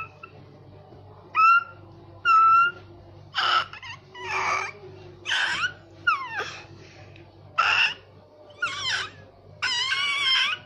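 A baby of about ten months squealing and cooing: a string of about nine short, high-pitched vocal sounds, some sliding in pitch, the last one longer.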